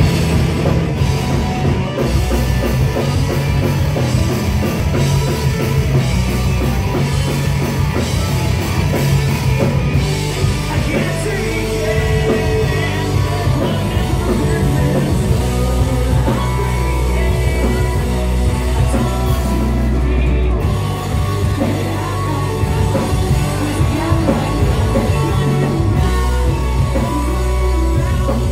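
Live rock band playing loudly: distorted electric guitars and a drum kit under a shouted-sung lead vocal through the PA, recorded from within the audience.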